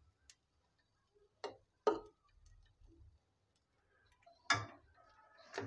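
A few faint clicks and taps of a utensil against an aluminium cooking pot as fish pieces in gravy are laid onto rice: two light taps close together, then another a few seconds later.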